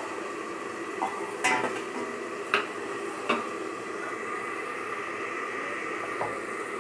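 Covered pan of spinach and fish head simmering on a gas burner: a steady hiss, broken by a few short sharp clinks, the loudest about one and a half, two and a half and three and a quarter seconds in.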